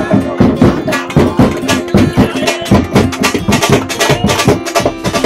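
Dhol drums beaten in a fast, dense rhythm, with a steady held note sounding underneath.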